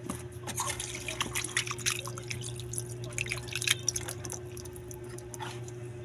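Wet dripping and splashing sounds, many short irregular drips in the first four seconds or so and fewer after, as a wet tilapia is handled, over a steady low hum.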